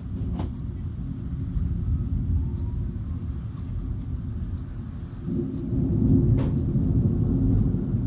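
Thunder rumbling low and steady in a severe storm, swelling louder about five seconds in.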